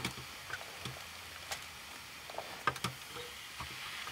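Food sizzling in a skillet on a propane camp stove, a steady hiss broken by sharp clicks and scrapes as a utensil stirs against the pan.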